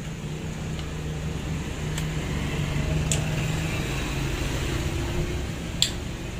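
A steady low mechanical hum with a background hiss runs throughout, and a few sharp clicks come from handling the test leads and switch wiring. The loudest click comes near the end.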